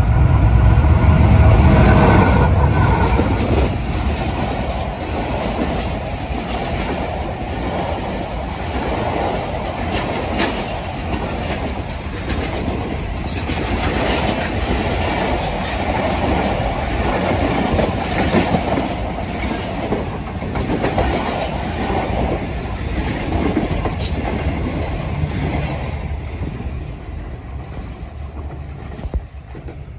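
Diesel-electric locomotive hauling a passenger train past at about 80 km/h, its engine loudest in the first few seconds. Then the coaches rush by with the wheels clacking over the rail joints, fading near the end as the last coach moves away.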